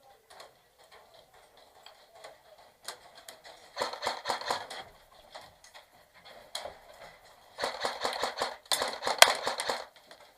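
Airsoft guns firing in rapid bursts of clicking shots: one burst about four seconds in, then two more back to back near the end, with a few single shots between.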